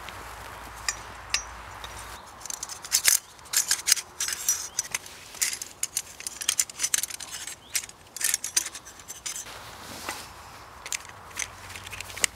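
Metal tent pole sections clinking and scraping against each other as they are handled: a busy run of sharp clinks and scrapes from about two to nine seconds in, with a few more near the end.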